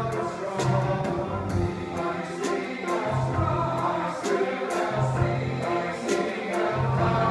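A men's chorus singing in parts, accompanied by piano and a drum kit whose cymbal strokes keep a steady beat.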